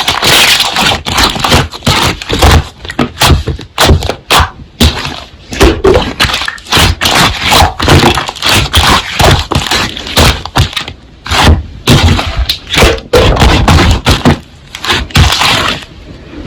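Slime being squeezed, pressed and poked by hand, with a quick, irregular run of wet pops, clicks and crackles.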